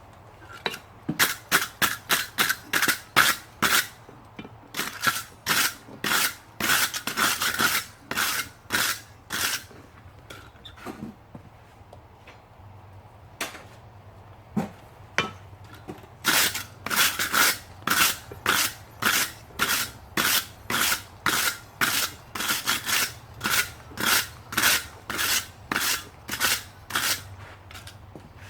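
Hammer blows on an anvil forging copper, in runs of two to four sharp strikes a second. A lull of several seconds in the middle holds only a few single blows.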